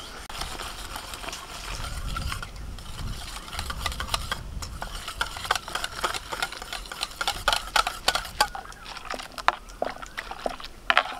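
Wire whisk clicking and scraping against a steel bowl, with quick irregular taps, as powdered milk is stirred into hot water poured in from a steel mug.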